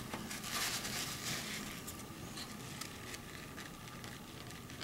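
Faint, irregular scratchy rustling of a paintbrush and a dabbing tissue working on textured watercolour paper: wetting the paint and lifting it off.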